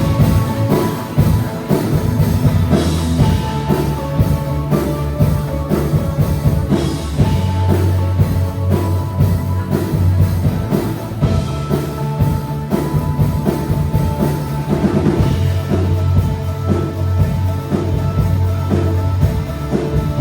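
Instrumental countdown intro music with a steady, driving drum-kit beat over sustained low bass notes.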